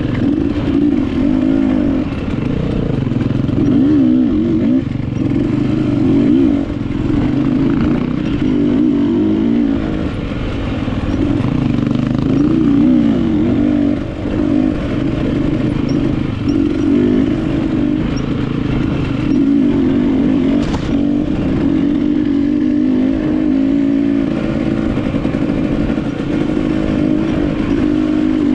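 KTM enduro dirt bike engine being ridden on a trail, its pitch rising and falling constantly as the throttle is opened and rolled off. A single sharp knock is heard once, past the middle.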